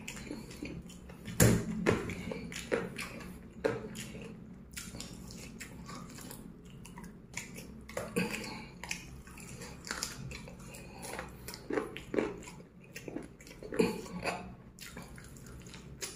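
A man biting and chewing fried chicken off a drumstick: irregular small crunches and wet mouth sounds, the loudest bite about a second and a half in.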